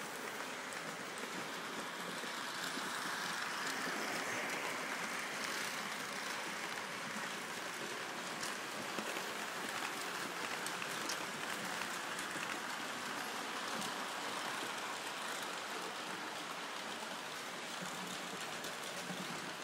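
Märklin model trains running on the layout: a steady rolling noise of metal wheels on track and small motors.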